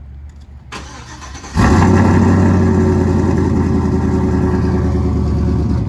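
GMC pickup truck's engine starting up: it catches about a second and a half in and settles into a loud, steady idle.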